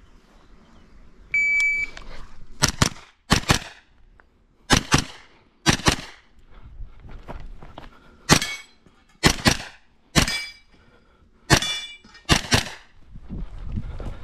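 An IPSC shot timer's start beep, then a pistol-caliber carbine firing a stage. The shots come mostly in fast pairs (double taps), in bursts with short gaps between target arrays, and some leave a brief ringing after them.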